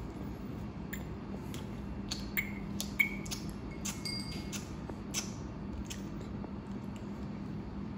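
Newborn baby taking drops from a dropper: soft mouth clicks and smacks, with a few brief high squeaks in the middle, over a steady low hum.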